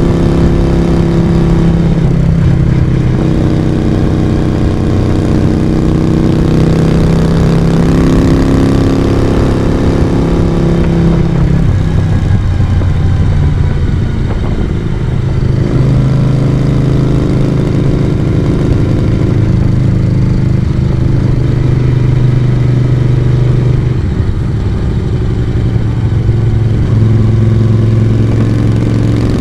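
1982 Moto Guzzi V35's air-cooled V-twin running under way on the road. The engine note drops to a lower pitch about eleven to twelve seconds in, then holds steady.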